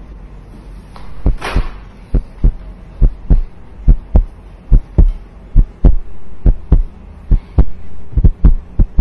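Deep thumps, often in pairs like a heartbeat, about two to three a second, over a steady low hum, with a brief hiss about a second and a half in.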